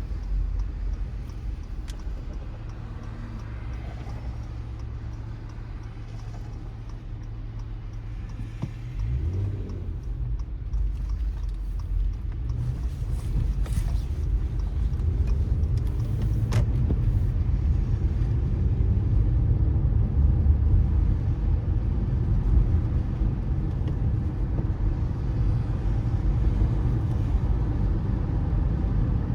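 A car on a wet city road: a steady low engine hum at first, then the engine rises in pitch as the car pulls away about nine seconds in. From there, engine rumble and tyre noise on the wet asphalt grow louder.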